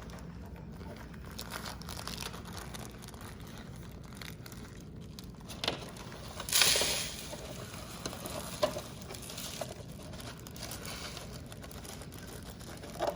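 Birdseed being poured into a cardboard milk carton, the seeds pattering and rustling, with a louder rush of pouring about halfway through and a few sharp ticks.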